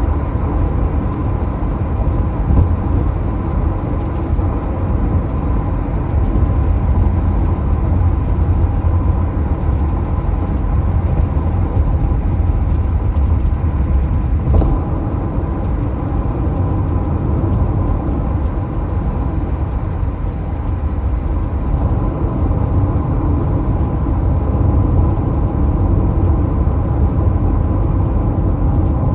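Hyundai Tucson rattling, heard over the car's steady low rumble, with faint ticks now and then and a slightly sharper one about halfway through.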